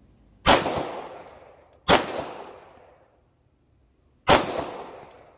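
Three single shots from a 9mm CZ pistol: the first about half a second in, the second about a second and a half later, and the third after a longer pause near the end, each trailing off for about a second.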